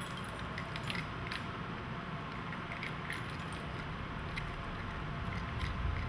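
Faint, scattered metallic clicks and light rattles of small parts being handled inside an opened Kodak slide projector, over a steady low hum.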